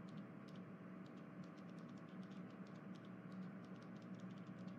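Near silence: a faint steady hum with light, irregular clicking scattered throughout.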